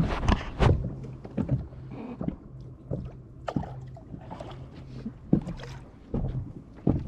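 Irregular knocks and thumps of gear being handled aboard a small fishing boat, over a steady low hum.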